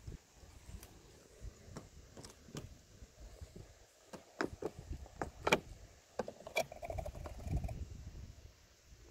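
Clicks and taps of a car's fuel filler flap being pressed and swung open, with the sharpest click about five and a half seconds in, over a low rumble.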